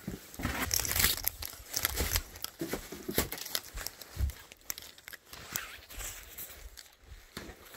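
Plastic bags and sheeting rustling and crinkling, with irregular clicks and knocks of things being brushed and moved about.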